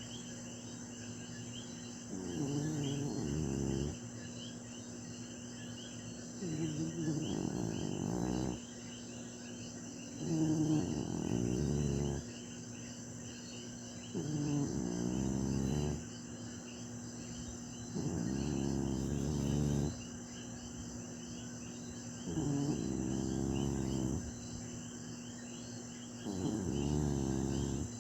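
Snoring: seven slow, drawn-out snores, each about two seconds long and roughly four seconds apart. Crickets chirp steadily behind them.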